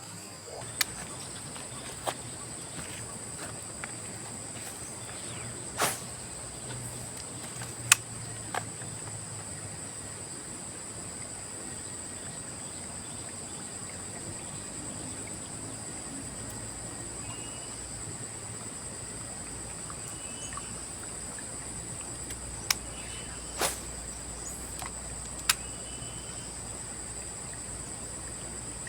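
Steady high-pitched insect chorus of crickets, with a few sharp clicks scattered through it.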